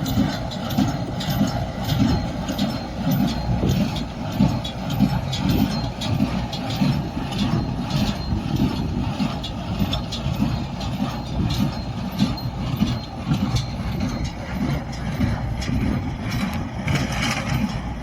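Small square baler running with its tractor engine, a steady mechanical drone with constant clattering knocks from the baler's working parts.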